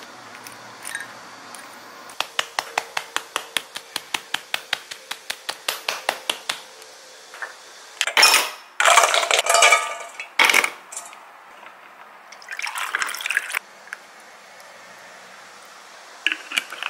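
A kitchen utensil clicking rapidly against a dish, about six strokes a second for four seconds, then liquid pouring and splashing in a few loud bursts.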